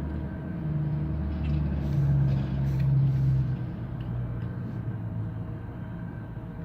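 A motor vehicle's engine rumbling low, growing louder toward the middle and then easing off as its pitch slowly drops, with a brief hiss near the loudest point.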